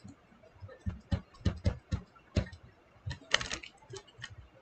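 Stylus tapping and scratching on a tablet screen during handwriting: irregular light clicks, with one longer scratch about three and a half seconds in.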